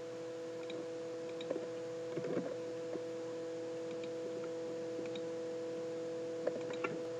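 Faint computer mouse clicks and keystrokes, scattered and soft, over a steady electrical hum of a few low tones.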